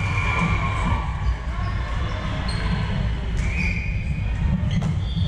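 Volleyball rally in a large gym: short squeaks of shoes on the hardwood court and a sharp hit of the ball near the end, over a steady low rumble in the hall.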